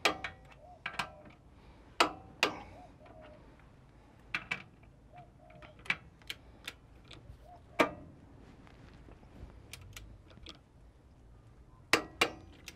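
Torque wrench working the knuckle's kingpin bearing-cap nuts up to 96 N·m to set the kingpin bearing preload: a dozen or so sharp metallic clicks at irregular intervals, a few of them ringing briefly.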